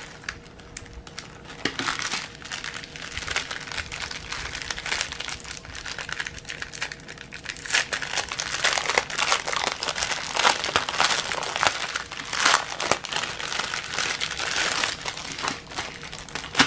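Thin plastic packaging crinkling and rustling as hands open a small zip-lock bag and handle cellophane packets, louder and busier from about halfway through.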